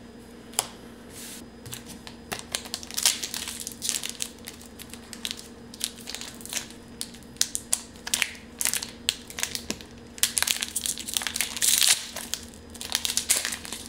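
Foil wrapper of a Pokémon TCG Steam Siege booster pack crinkling and crackling in irregular bursts as it is worked open by hand, busiest about ten seconds in.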